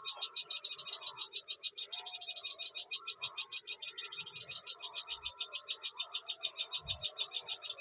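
A steady, high-pitched pulsing chirr, about ten pulses a second, typical of insects calling outdoors, with fainter, irregular lower animal calls underneath.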